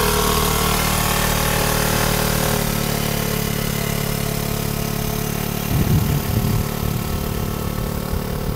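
Vespa Primavera automatic scooter engine running at steady, even revs, throttle held on while the rear brake holds the scooter to a slow ride. A brief low rumble comes about six seconds in.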